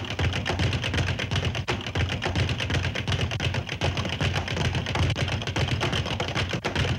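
Cartoon sound effect of a rapid flurry of boxing-glove punches: a fast, unbroken series of thuds, many a second, without a pause.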